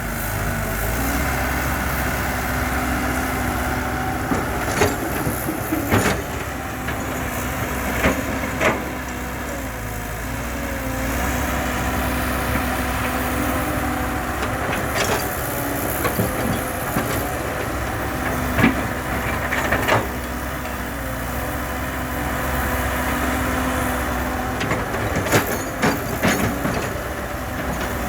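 Heavy earthmoving machinery's diesel engine running steadily, with sharp knocks every few seconds as the machine works.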